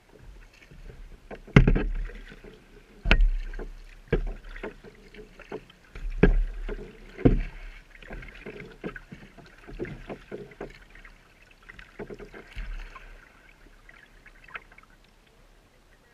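Paddle strokes on a Pelican Quest 100 kayak: a knock as the paddle enters the water about every second or so, with splashing and drips between. The strokes are strongest in the first half and grow softer near the end.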